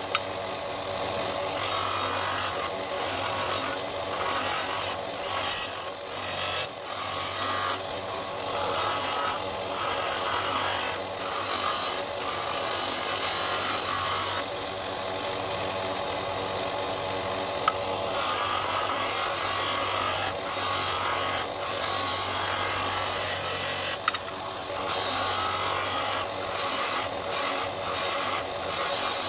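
Disc sander running with a steady low hum while a dark-wood ring with a brass centre is pressed against the abrasive disc. The rasping hiss of sanding swells and eases as the ring is turned and lifted off, easing off for a few seconds past the middle. A few sharp ticks are heard along the way.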